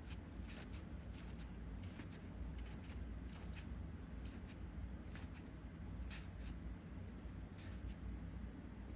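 Trading cards being handled, with short, soft swishes as each card is slid off the stack, about one a second, over a faint low hum.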